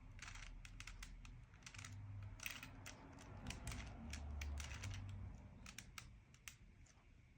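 Plastic Rubik's cube being twisted by hand: quick, irregular clicking and clacking of the layers turning, thinning out near the end.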